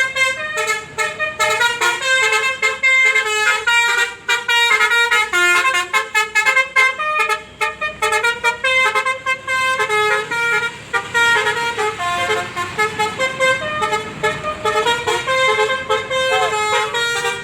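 Basuri V3 telolet horn on a bus, a multi-tone melodic air horn, playing a fast running tune of short stepped notes without a break.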